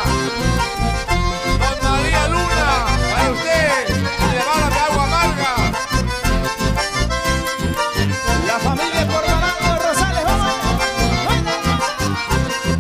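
Live folk band playing an instrumental passage led by two button accordions, with acoustic guitars over a steady pulsing beat.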